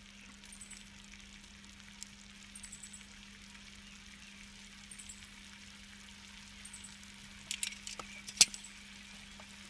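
Food sizzling faintly on a grill net over a weak campfire, with small crackles and spits every second or two. A few sharp clicks come near the end, one much louder than the rest.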